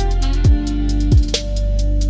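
Instrumental lounge music with a steady beat: two deep kick drums that drop in pitch, ticking hi-hats and held notes.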